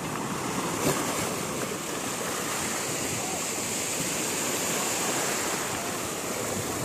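Sea water splashing and sloshing in a steady rush, with one sharper splash about a second in.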